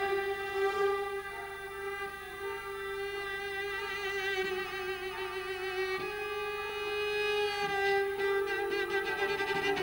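Solo cello holding a long, high bowed note with vibrato, with the orchestra's strings playing along; about eight seconds in, further notes join.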